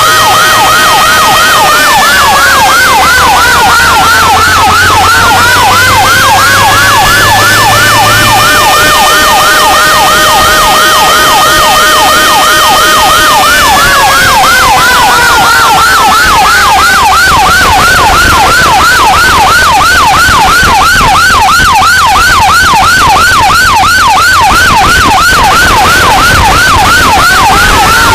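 Emergency sirens of a responding fire truck, two at once: a slow wail that rises and falls over several seconds, over a fast, continuously repeating yelp.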